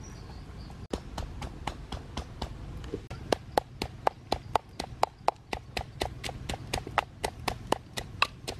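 Wooden pestle pounding red chilies and peppercorns in a small clay mortar: a steady run of knocks, about four a second, louder from about three seconds in.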